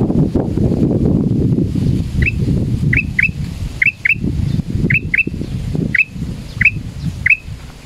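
Male black-crested bulbul (kutilang emas) giving short, sharp whistled notes, often in quick pairs, repeated about every second. The title presents them as the call of a frightened male. A loud, uneven low rumble runs underneath.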